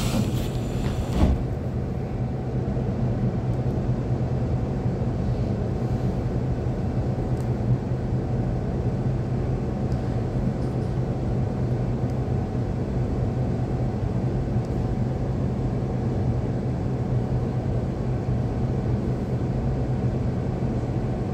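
Taiwan Railway EMU800-series electric train running between stations, heard from inside the car: a steady rumble with a low hum, and a single knock about a second in.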